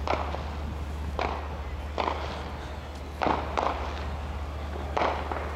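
A string of irregular thumps and knocks, about six in five seconds, over a steady low hum.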